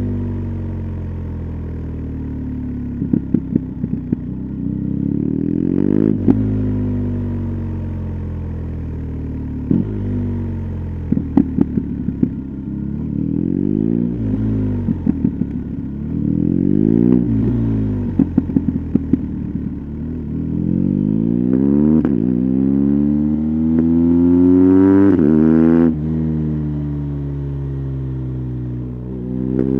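2020 BMW R 1250 GS's boxer-twin engine through an SC Project titanium slip-on exhaust, accelerating and easing off through the gears, the revs rising and falling again and again. A long climb in revs comes in the last third, broken by a gear change. Short clusters of crackles come several times along the way.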